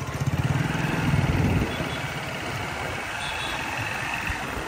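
A motorcycle engine running close by, loudest for the first second and a half, then dropping to a steady low traffic hum.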